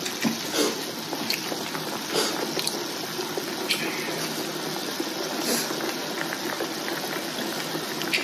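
Broth bubbling in an electric hotpot, a steady hiss, with a few light clicks of chopsticks against the pot and bowls.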